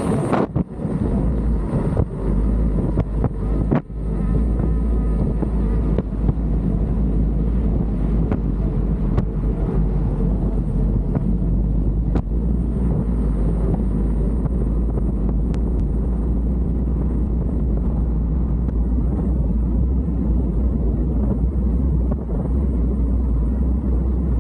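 Steady low rumble of wind and road noise while riding an electric unicycle, unchanging throughout, with a few brief knocks in the first few seconds.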